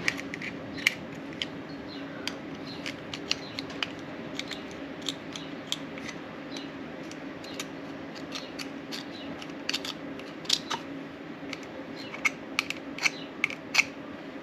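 Knife blade scraping a motorcycle fuel petcock's sealing surface clean: many quick, irregular scratchy strokes. A steady low hum runs underneath.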